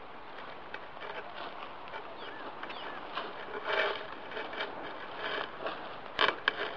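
Rustling and footsteps in dry grass, with small irregular clicks and a few louder knocks, about midway and again near the end.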